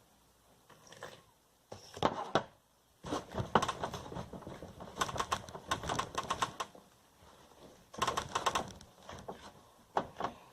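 Slime being mixed in a container: bursts of rapid clicking and tapping from the stirring, with short pauses between.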